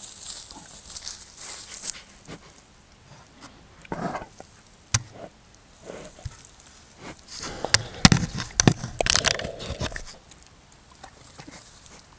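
Black bear at the trail camera, its fur brushing and its body bumping against the housing: irregular rustles, knocks and scrapes, loudest and busiest between about eight and ten seconds in.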